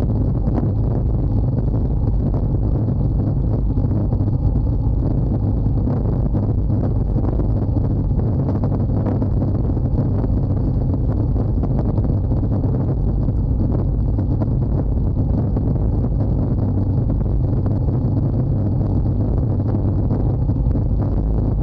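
Wind rushing and buffeting over the camera microphone on a bicycle coasting downhill at about 65–70 km/h: a steady, heavy low rumble of air noise.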